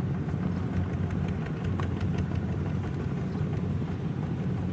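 Small diesel engines of mini tractors running steadily as they haul loaded rice trailers along a dirt track.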